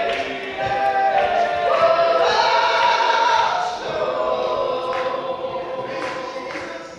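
Gospel vocal group singing in harmony, holding long notes that shift pitch every second or two.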